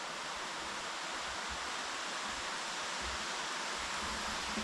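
Steady rushing noise of an underground waterfall in the cave, even and unbroken.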